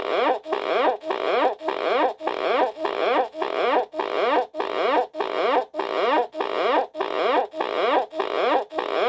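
Portable cassette recorder making a farting, sputtering sound through its built-in speaker: short warbling pulses about twice a second, each sliding upward in pitch, in an even repeating rhythm.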